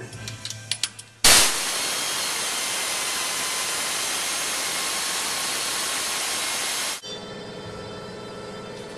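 Pneumatic air ratchet running on the 8mm rocker-arm bolts of a 5.3 L LS V8: after a few light clicks, a loud steady rush of air starts suddenly about a second in and cuts off abruptly some six seconds later. A quieter steady hum follows.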